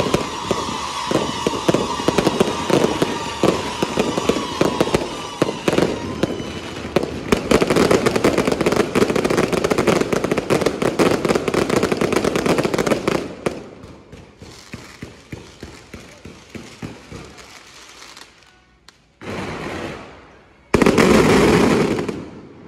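Fireworks display: dense crackling and popping of aerial shells and firecrackers, with a few falling whistles in the first few seconds. About thirteen seconds in it thins to scattered pops, then two loud rushing bursts come near the end.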